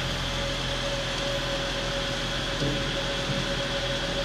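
Steady fan hum, with a constant faint high whine over a low drone.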